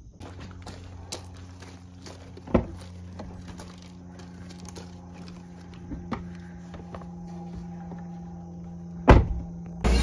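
Chevrolet Traverse SUV doors thudding shut: a knock about two and a half seconds in and a louder slam about nine seconds in, with a steady low hum and small clicks and rustles of children climbing in between.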